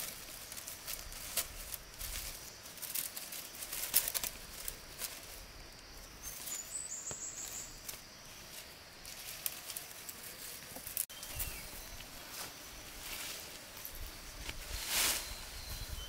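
Irregular rustling with scattered light clicks and taps, the loudest about four seconds in and again near the end.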